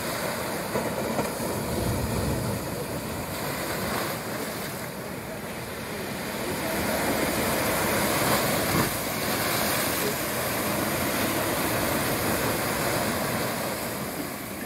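Sea waves breaking on a sandy beach and washing up the shore as a steady rushing surf that swells and eases, loudest about two-thirds of the way through.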